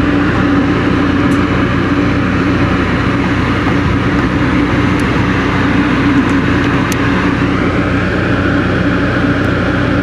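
Carrier rooftop packaged air-conditioning unit running: a steady, loud hum from the compressor with the rush of the condenser fan.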